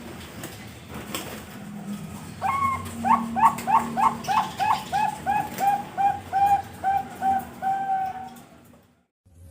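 A Bangkok-bred perkutut (zebra dove) singing: starting about two and a half seconds in, a long run of quick, evenly paced cooing notes, about three a second, that grow steadier and lower toward the end.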